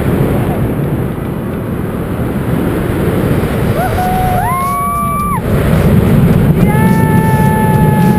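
Wind buffeting the microphone under an open parachute canopy, getting louder about six seconds in. A person whoops twice over it: a short rising whoop about four seconds in, then one long held whoop from about seven seconds in.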